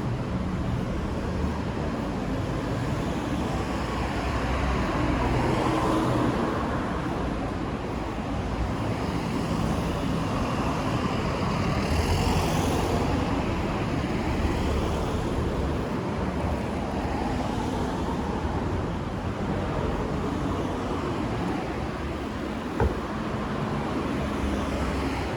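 Road traffic: cars driving past one after another, their engine hum and tyre noise swelling and fading, with the nearest passes about a fifth and half of the way in. A single sharp click near the end.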